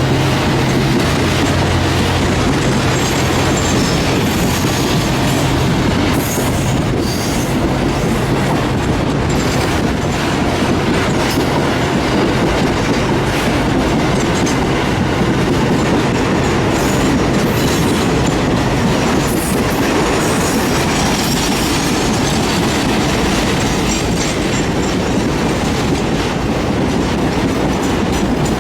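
Freight train passing close by: a low diesel engine drone in the first few seconds gives way to the loaded wagons rolling past, with wheels clattering over rail joints and some wheel squeal.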